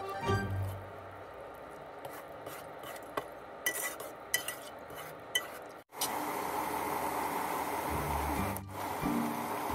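A metal spoon stirring wet sugar in an enamel pot, grating with a few sharp clinks against the pot. About six seconds in, after a cut, the sugar syrup is boiling with a steady bubbling hiss.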